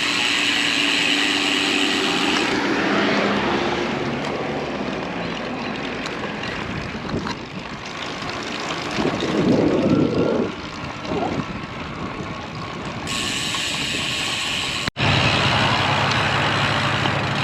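Road traffic noise: motor vehicles passing and running near a moving bicycle, with a louder surge about nine to eleven seconds in. The sound cuts off abruptly about fifteen seconds in and resumes as a steady low hum.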